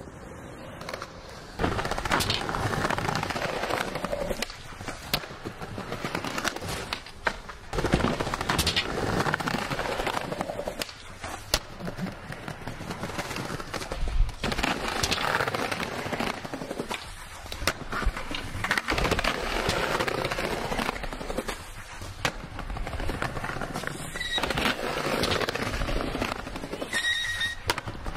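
Skateboard wheels rolling over concrete, broken by repeated sharp clacks of the board popping and landing.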